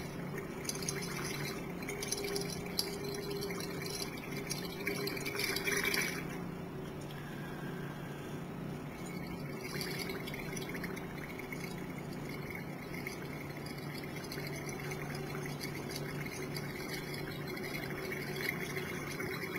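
Exhaled breath being blown into a small glass vial of universal indicator solution, bubbling and hissing in stretches that are loudest about five to six seconds in. A steady low hum sits underneath.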